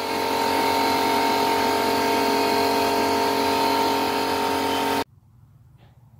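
Air compressor running steadily, then stopping abruptly about five seconds in.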